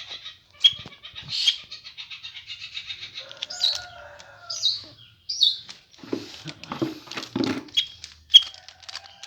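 Caged white-rumped shama (murai batu) calling and fluttering. A fast ticking trill runs through the first three seconds, followed by several short, sharp chirps and then a burst of wing-flapping and rustling.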